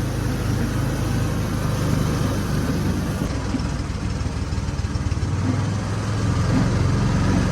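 ATV engine running, a steady low drone.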